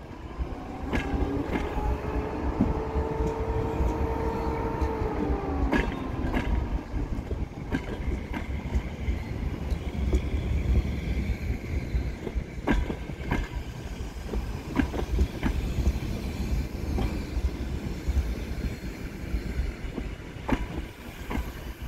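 Passenger coaches of an arriving train rolling slowly past, with a steady rumble and wheels clicking over rail joints at irregular, well-spaced intervals. A metallic squeal of several pitches sounds for about five seconds near the start.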